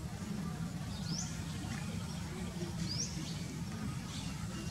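A bird giving a short, high chirp that sweeps upward in pitch, repeated about every two seconds, over a steady low background rumble.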